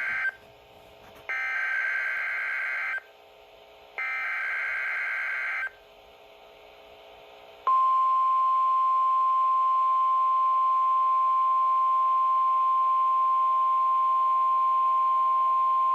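NOAA Weather Radio emergency alert signal. The end of one SAME digital header burst is followed by two more harsh warbling data bursts, each about a second and a half long with short gaps between them. After a pause of about two seconds, the steady single-pitch 1050 Hz warning alarm tone starts and holds at one loud level, announcing the severe thunderstorm watch.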